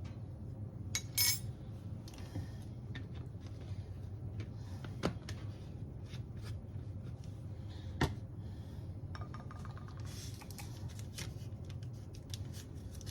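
Kitchen utensils and dishes clinking and knocking while baking ingredients are measured and added: scattered sharp clicks, the loudest about a second in and about eight seconds in, over a steady low hum.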